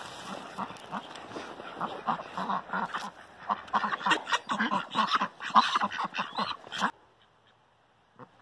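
Domestic ducks quacking in a dense run of short, repeated calls while being fed corn. The sound cuts off abruptly about seven seconds in.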